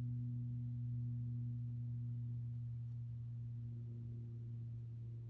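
Steady low hum with a fainter higher overtone, slowly getting quieter in the last seconds.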